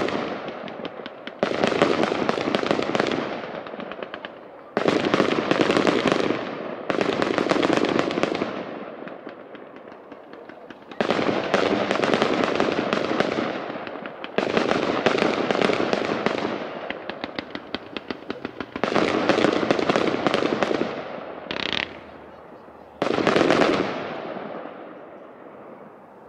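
Aerial firework shells bursting one after another, about eight in all. Each sets off a sudden crackling burst that fades away over a few seconds.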